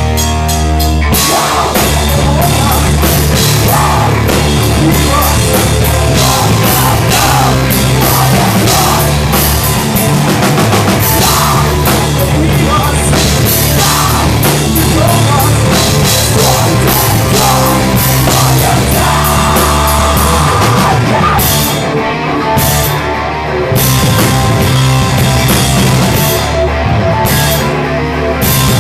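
Heavy metal band playing live: electric guitar, bass and drum kit. The drums and cymbals come in about a second in, and the cymbals drop out briefly twice near the end.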